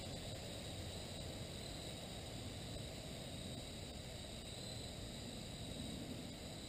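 Quiet woodland ambience: a steady high-pitched insect chorus that swells and fades slightly, over a low rumble of breeze on the microphone.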